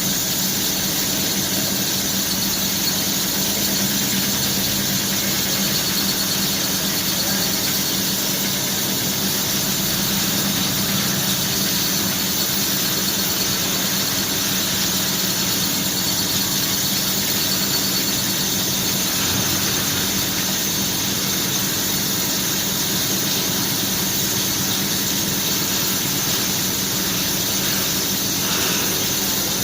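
CNC machine running steadily, with a constant high-pitched whine over a low hum.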